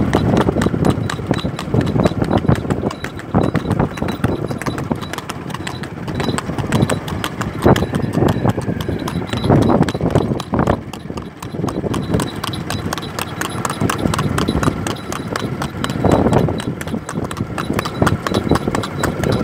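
A horse's hooves clip-clopping along a road in a quick, steady run of strikes as it steps high under a rider.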